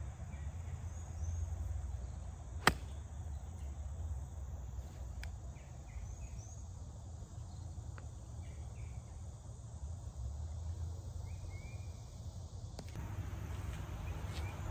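A golf wedge striking the ball on a full approach shot: one sharp click about two and a half seconds in. Under it runs a steady low rumble, with a few brief high chirps now and then.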